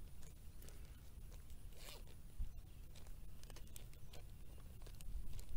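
Zip seal of a small plastic Ziploc bag being worked with the fingers: scattered soft clicks and plastic crinkling.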